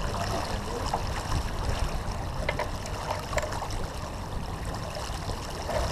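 Steady rush of water along the hull of a sailboat heeled under sail, with a low rumble underneath.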